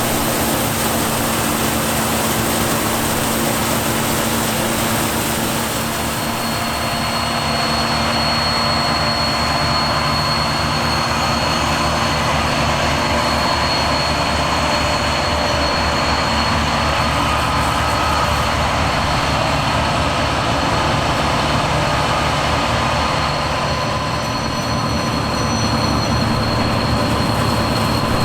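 Heavy harvest machinery running steadily at working load: diesel engine noise with several steady whining tones, a high whine joining after several seconds.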